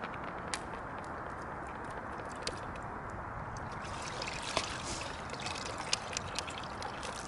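Water dripping and splashing into a plastic bucket as a soaked wash mitt is lifted out of the wash water, busiest about halfway through. Scattered small taps and clicks over a steady background rush.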